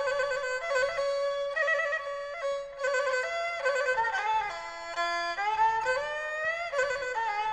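Instrumental passage of traditional Khmer wedding music (pleng kar), a bowed fiddle carrying a sliding, ornamented melody line.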